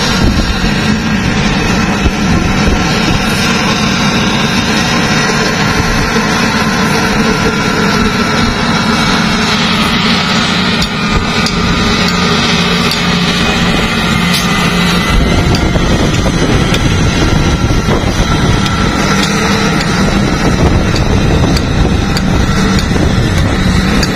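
LiuGong ZL50CN wheel loader's diesel engine running loud and steady as the loader pushes dirt. The sound gets higher and thinner between about ten and fifteen seconds in, then the deep drone returns.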